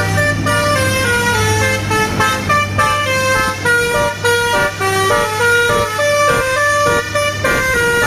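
A truck's Basuri telolet horn playing a quick dangdut-style melody of short notes that jump up and down in pitch.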